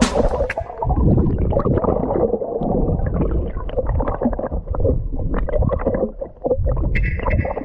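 Muffled underwater gurgling and sloshing of water against a submerged action camera, with irregular small clicks and knocks.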